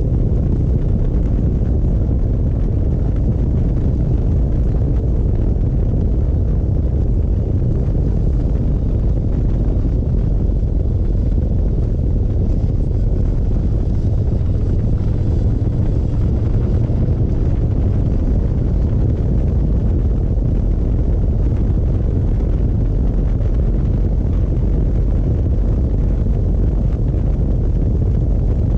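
Harley-Davidson Road Glide's V-twin engine running steadily at road speed, heard as a low, even rumble mixed with wind buffeting on the mounted camera's microphone.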